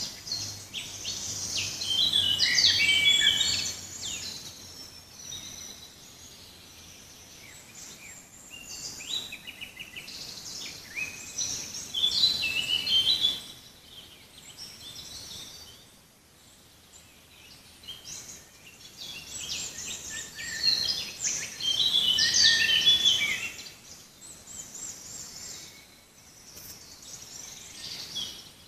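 Songbirds singing and chirping in a forest, several calling over one another in quick trills and chirps. The song swells loudest about two to four seconds in, again around twelve seconds, and from about nineteen to twenty-three seconds, with scattered quieter chirps between.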